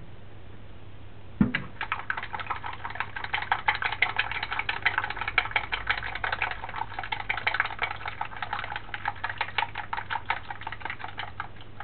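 Chopsticks beating an egg mixture in a stainless steel bowl: a quick, steady run of light clicks against the bowl's side. It starts with a single knock about a second and a half in.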